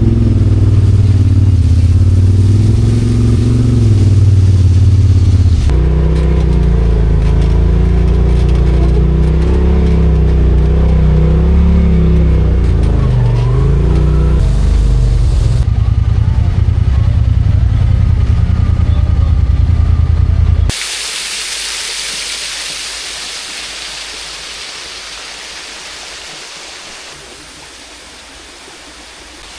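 Off-road side-by-side engine running under load, its pitch rising and falling, heard across several cuts. About two-thirds of the way through it cuts to a steady rushing hiss, like a waterfall, which slowly fades.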